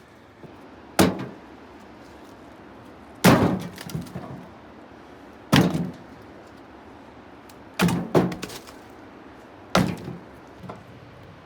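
Pieces of dry split firewood clacking against each other as they are set down, about five sharp knocks roughly two seconds apart, one of them doubled, each with a short hollow rattle.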